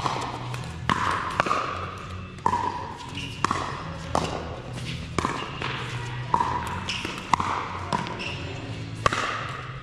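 Pickleball paddles striking a plastic ball and the ball bouncing on the court: sharp pops at irregular intervals of about a second, echoing in a large indoor hall, over a faint steady low hum.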